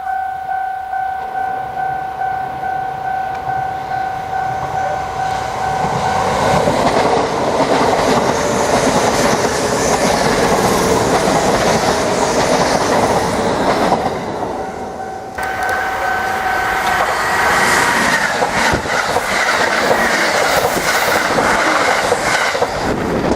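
Japanese level-crossing warning bell ringing in a fast, steady two-tone pulse, then a Kintetsu train passing over the crossing with loud wheel and rail clatter. The train noise drops for about a second two-thirds of the way through, letting the bell through, then swells again.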